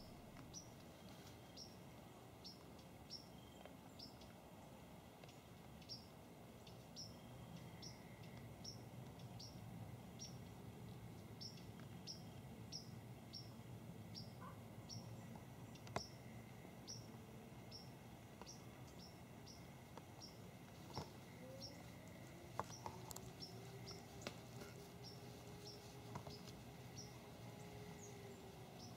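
Faint quiet-woods ambience: a small bird giving a short, sharp chip note over and over, about three every two seconds. A few soft clicks like twigs snapping, and a faint low hum comes in during the last third.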